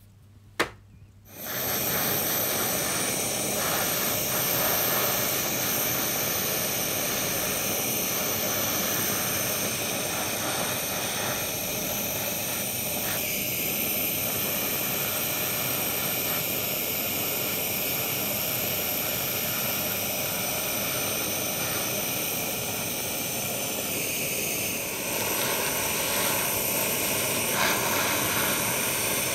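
Jeweller's gas torch burning with a steady hiss as its flame heats the joint of a gold bangle, starting just after a single sharp click.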